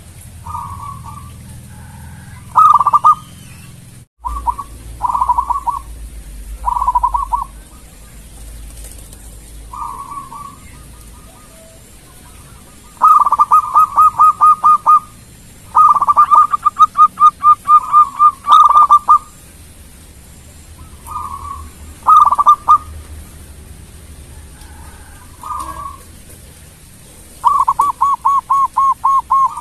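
Zebra dove (perkutut) singing: short cooing phrases alternating with longer rolling runs of quick, evenly spaced coos, about five a second.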